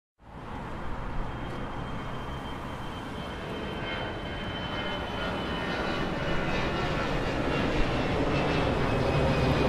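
A steady engine-like drone with a faint high whine, slowly growing louder.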